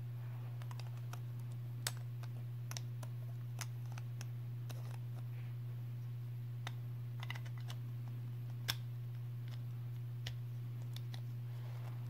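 Beyblade Burst spinning-top parts, plastic layers with a metal ring and a driver, clicking and clacking as they are handled and taken apart. The clicks are irregular, with two sharper ones about two seconds in and just before nine seconds, over a steady low hum.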